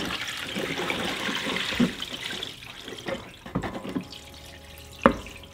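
A kerosene and methylated spirits cleaning mix pouring out of a used intercooler into a plastic tub. A steady splashing stream for about two seconds thins to trickles and drips, with a single knock near the end.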